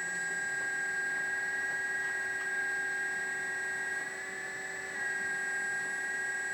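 Electric hydraulic pump of a 1/14 LESU ET30H RC excavator running with a steady high whine as the arm and bucket are worked. About four seconds in, the pitch shifts slightly and the level dips for about a second, then returns.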